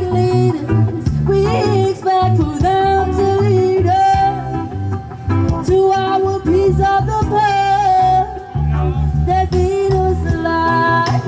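Street performers' music: a singer holding long, wavering notes over guitar and bass with a steady beat, in a reggae style.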